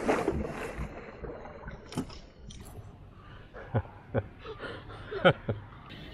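A small wooden canoe being knocked and bumped as a fishing rod and gear are handled in it. It gives a few separate, irregular knocks, the loudest about five seconds in.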